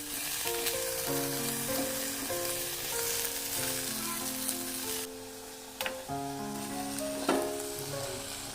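Food sizzling as it fries in hot oil in a pan, with a few utensil clicks. The sizzle eases off briefly about five seconds in, then picks up again. A gentle melody of held music notes plays underneath.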